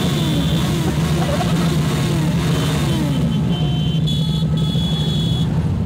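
Motorcycle and car engines in slow city traffic: a steady engine drone, with engine notes sliding down in pitch several times in the first few seconds.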